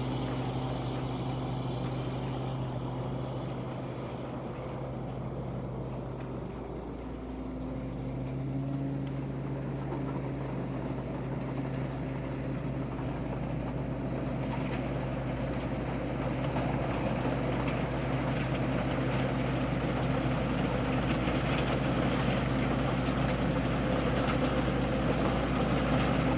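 Harvesting tractor's engine running steadily with an even hum; its pitch sags briefly about seven seconds in, then picks back up, and the engine grows a little louder toward the end.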